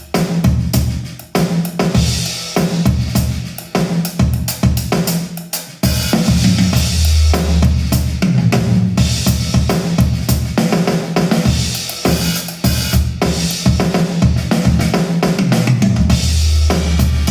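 Drum-heavy music with a strong bass drum, snare and cymbals, played back on HiVi Swans D1200 speakers. It breaks off briefly about six seconds in and then comes back fuller and steadier.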